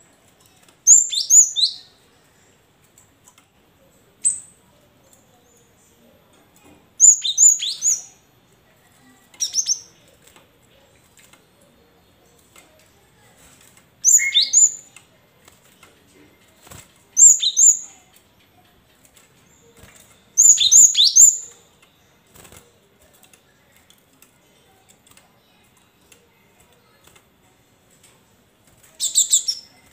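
Caged cinereous tit (gelatik batu) calling in about eight short bursts of sharp, high notes that fall quickly in pitch, with pauses of a few seconds between them. Faint taps come in between as it moves about the cage.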